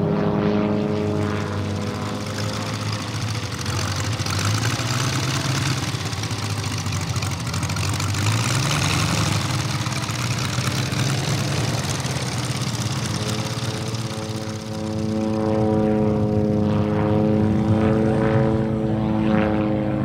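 VM R7-800 seven-cylinder 800 cc radial engine of a giant-scale RC Stearman PT-17 biplane running at power in aerobatic flight, its propeller drone swelling and fading as the aircraft passes. The rush of propeller noise is strongest about halfway through. The engine note dips briefly about three-quarters of the way in, then comes back stronger as the biplane climbs.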